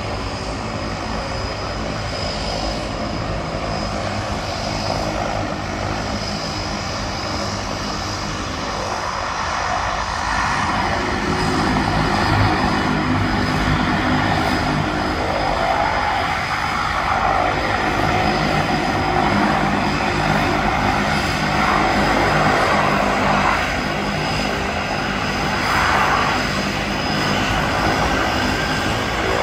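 De Havilland Canada DHC-6 Twin Otter floatplane's two turboprop engines running steadily as it taxis on the water, propellers turning. The sound gets louder about ten seconds in.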